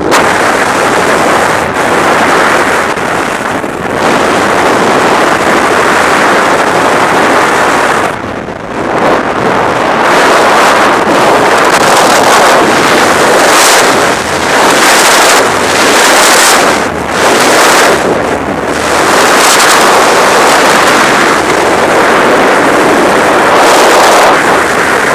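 Loud rushing wind of a skydive buffeting the camera microphone, a steady roar of air that dips briefly a few times.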